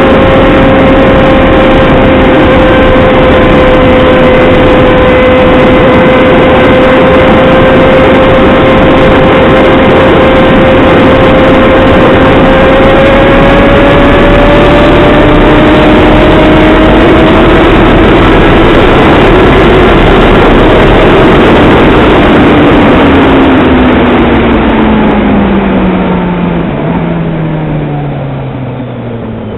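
Yamaha XJ6 motorcycle's inline-four engine running hard at high revs, over a constant rushing noise, the note creeping up in pitch around the middle. Near the end the engine note falls away and the sound drops as the throttle closes and the bike slows.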